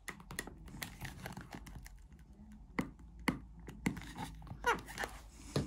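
Hard plastic clicking and creaking as a window scraper pries the very tight adjuster knob off the splined bar of a Land Rover Freelander 2 front armrest. Scattered small clicks, with a few sharper clicks and a short squeak in the second half.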